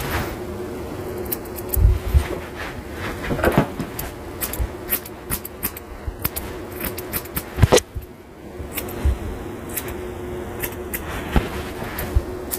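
Grooming shears snipping through a schnauzer's facial hair in irregular runs of quick, crisp clicks, over a faint steady hum. A louder knock comes a little past the middle.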